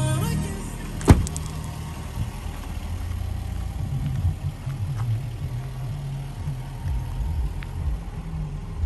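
A car door shuts with a single solid thud about a second in. Then the Range Rover's 5.0-litre supercharged V8 idles with a low, uneven rumble.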